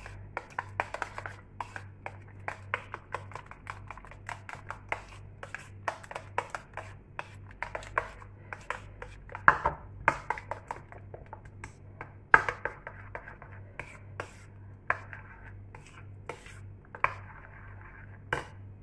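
Metal spoon stirring a thick cream in a bowl: quick, irregular clicks and scrapes of the spoon against the bowl, with a few louder clinks in the middle and near the end.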